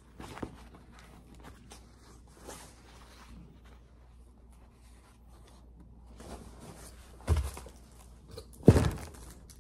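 Rustling and crinkling of an anime wall scroll being unrolled and handled, with two louder thumps near the end, the second the loudest.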